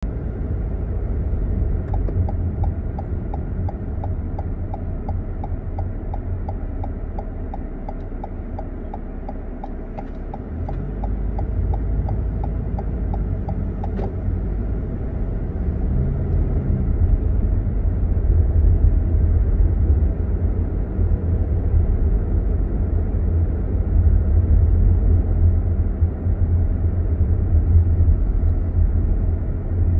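Car cabin noise while driving slowly: a steady low engine and tyre rumble that grows a little louder about a third of the way in. Over the first half a light, even ticking comes about three times a second and then stops.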